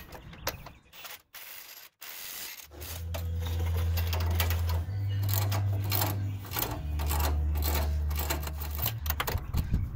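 Hand tools and metal suspension parts clicking and knocking irregularly while shocks and end links are fitted, over a steady low hum that starts about three seconds in and shifts pitch every couple of seconds.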